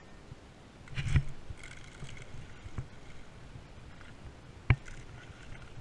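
A hooked fish splashing at the water's surface while a spinning reel is cranked, with two sharp clicks, one at the start and one a little before the end.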